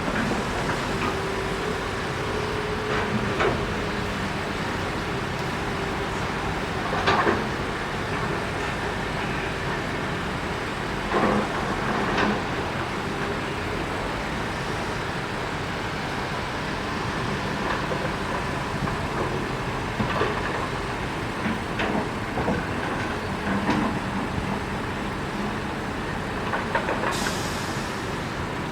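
Heavy diesel machinery running steadily at an excavator loading dump trucks, broken by several sharp clanks and knocks. A short hiss comes near the end.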